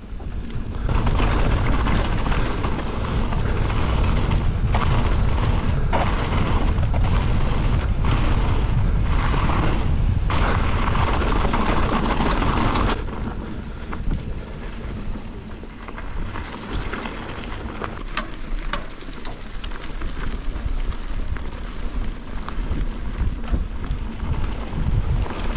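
Wind buffeting the microphone over the rumble of a mountain bike's tyres on a dirt trail during a descent, with scattered clicks and rattles from the bike. It is loudest for the first half, then eases off somewhat about halfway through.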